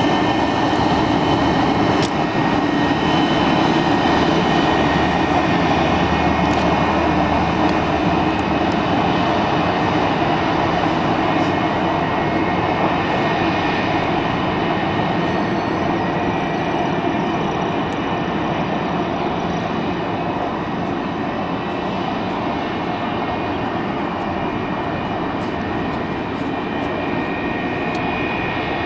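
McDonnell Douglas MD-80-series airliner taxiing, its rear-mounted Pratt & Whitney JT8D turbofans running at taxi power: a steady rush with a high whine over it, slowly fading as the jet moves away.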